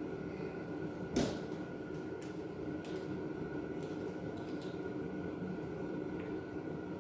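Clicks from a cordless drill and small hardware being handled: one sharp click about a second in, then a few light ticks, over a steady background hum.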